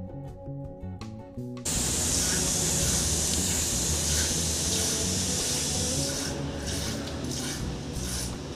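Acoustic guitar music cuts off about a second and a half in. It gives way to a steady hiss of milk squirting from a cow's teat into a small steel pot during hand milking. From about six seconds in, the hiss breaks into separate short spurts.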